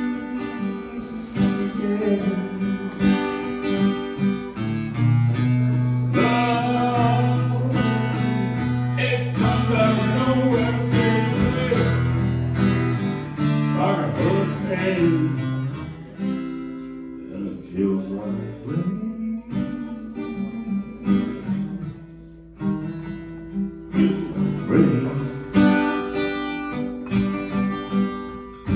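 Solo acoustic guitar strummed, with a man singing along to it through a microphone; the guitar plays with fewer, spaced strokes in the second half.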